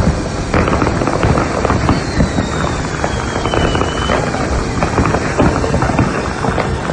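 Many fireworks going off at once, a dense, continuous crackle of bangs and pops. About two seconds in, a thin whistle slides down in pitch for about two seconds.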